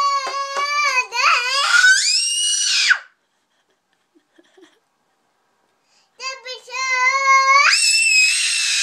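A toddler singing a long held note while slapping a small hand drum, about five quick hits a second, then her voice leaps much higher in pitch. After a pause of about three seconds she sings another held note that jumps up to a loud, high-pitched note near the end.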